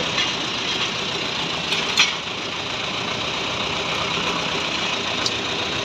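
Tow truck's engine idling steadily during a wheel-lift loading, with a single sharp knock about two seconds in.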